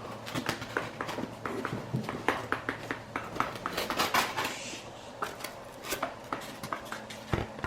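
Hands rummaging through a snake shipping box, with a run of irregular crinkles, rustles and light clicks as packing materials are moved about.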